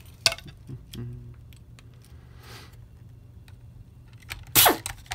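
Scattered clicks and knocks of the hard plastic parts of a Dyson V8 cyclone assembly being handled and fitted together, with a sharper clack about four and a half seconds in.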